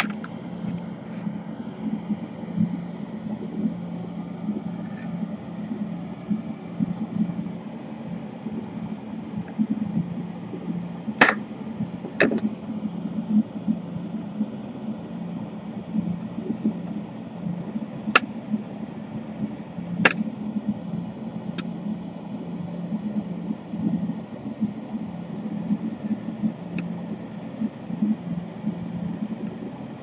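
A few sharp metallic clicks as pliers and a soldering iron tip work the DC power jack loose from a laptop motherboard during desoldering, over a steady low hum.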